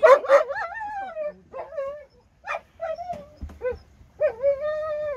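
A dog whimpering: two sharp yips at the start, then broken high whines, then a long wavering whine near the end.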